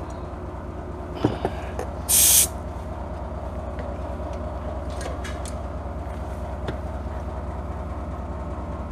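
Hand tools clicking and tapping against a Honda generator's plastic casing while screws are worked loose, over a steady low hum. One short, loud hiss of air comes about two seconds in.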